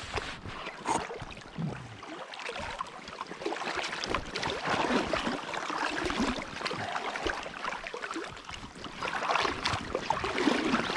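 Creek water running, with irregular splashing.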